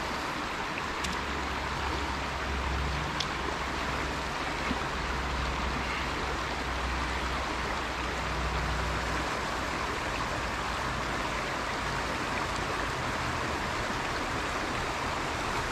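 Steady outdoor background hiss with a low rumble underneath that swells and eases a little; no distinct event stands out.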